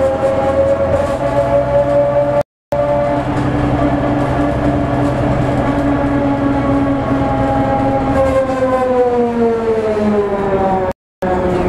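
MCW Metrobus on the move, heard from inside: a loud whine from worn planet gears in the hub reduction, one pitch with several overtones over the low drone of the Gardner diesel engine. The whine holds fairly steady, then falls in pitch from about eight seconds in as the bus slows. The sound cuts out briefly twice.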